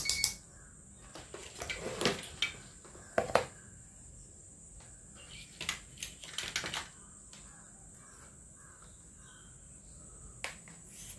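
Scattered light clicks and knocks as an LED backlight tester box and multimeter probes are handled and set down on a bare TV panel, over a faint steady high-pitched whine.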